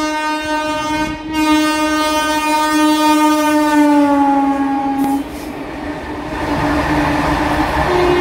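Electric freight locomotive horn, of the WAG-5 type, sounded in one long blast with a brief break about a second in. Its pitch drops slightly as it passes at about five seconds, then it stops. The steady rumble and clatter of loaded freight wagons rolling past at speed follows.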